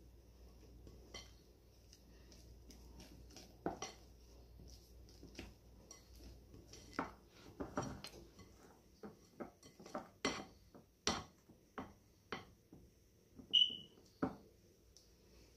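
Silicone spatula stirring thick plantain batter in a glass mixing bowl: irregular knocks and scrapes against the glass, coming faster and louder in the second half, with one brief high ring near the end.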